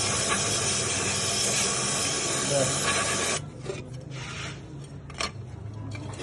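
Aerosol spray cleaner (Z40, a WD-40-type cleaner) hissing steadily as it is sprayed onto a car's clutch fork arm to flush out dirt. The spray cuts off suddenly about three and a half seconds in, followed by one short spray and a few light clicks.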